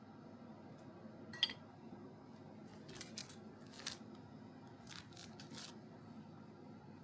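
Small kitchen handling sounds: a single sharp click with a brief ring about a second and a half in, then two groups of three or four short rasping strokes.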